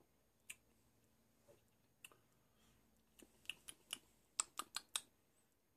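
Faint mouth clicks and lip smacks from someone tasting a sip of beer: a few scattered ones, then a quick run of about eight sharp clicks in the second half.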